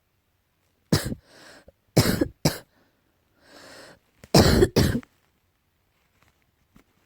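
A person coughing: about five coughs in three short bouts, with an audible intake of breath between the bouts. The uploader puts the cough down to allergy.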